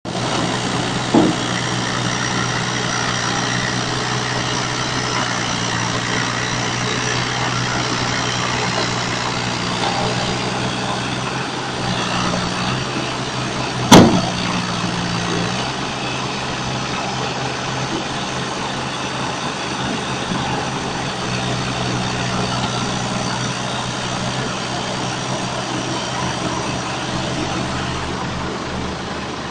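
Caterpillar 302.7D mini excavator's diesel engine running steadily while the machine works its way sideways up onto a flatbed trailer. There is a small knock about a second in and a loud sharp knock about halfway through as the steel tracks and trailer take the weight.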